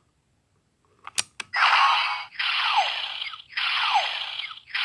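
Legend Hero Ganwu Changer DX toy: two sharp plastic clicks about a second in as a hero piece is set into it, then its speaker starts a repeating electronic sound effect, a noisy burst with a falling whistle, about once a second.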